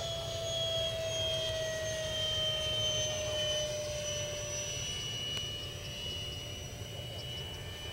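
Electric ducted fan of a model T-45 jet, a 68 mm metal fan on a 4000kv outrunner motor, whining steadily in flight, its pitch slowly falling over the first few seconds.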